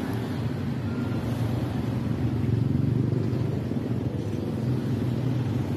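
Street traffic: a steady low engine rumble from nearby motor vehicles, swelling a little about halfway through.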